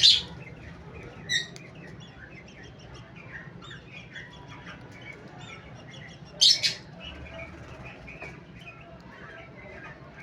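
Cockatiels chirping softly and continually, with a loud, sharp call right at the start, a shorter one about a second and a half in, and another loud call about six and a half seconds in.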